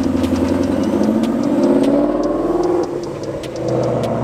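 ESS-supercharged Ford Mustang driving by and accelerating, its engine note rising, easing off for a moment about three seconds in, then rising again.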